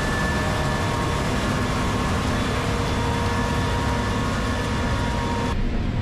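Case IH 5130 combine harvesting corn: a loud, steady machinery hum with a rushing noise and several high whines. About half a second before the end it switches abruptly to a duller, lower hum heard inside the combine's cab.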